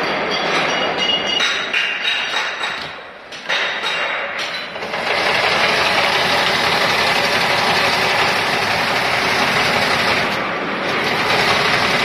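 120-series wire harness braiding machine running: lighter metallic clicking and rattling, then about five seconds in a steady, dense mechanical clatter sets in and keeps going.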